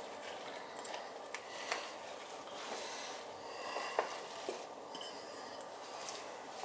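Faint kitchen handling: a few light clicks and knocks as cut vegetables and a utensil meet a cooking pan, over a low steady background.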